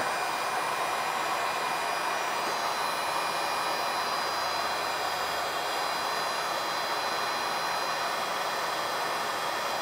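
Electric heat gun running steadily, a constant rush of blown hot air, aimed at a laptop motherboard's graphics chip to reflow its solder.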